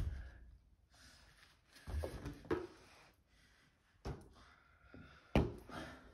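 Rubber balloons being batted by hand and bouncing: a few short, soft thuds, the sharpest about five seconds in.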